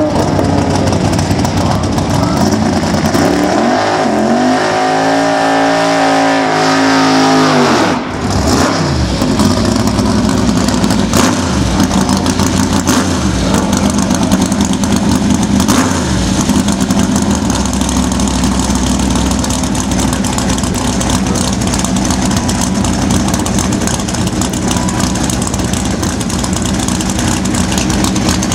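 Camaro drag car's V8 engine revved hard and held high for about four seconds, then dropping sharply back. It then runs steadily at a loud, lower idle.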